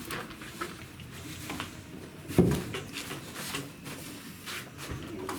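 Wood fire crackling in a newly built stove, with scattered small pops, and one loud thump about halfway through.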